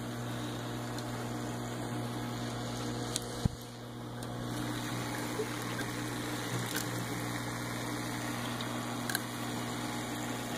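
Sea Clone 100 protein skimmer running: a steady pump hum under the noise of water running through it into the aquarium. A single sharp knock comes about three and a half seconds in.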